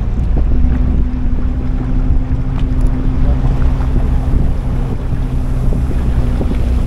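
A small sightseeing boat's engine running steadily at cruise, a continuous low drone, with wind buffeting the microphone.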